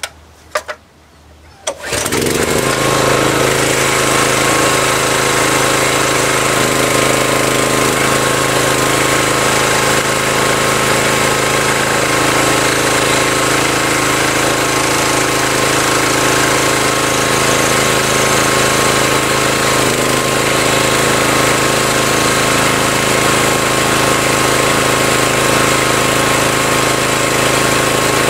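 Small log splitter's 7-horsepower Subaru engine running steadily, starting abruptly about two seconds in after a few faint clicks.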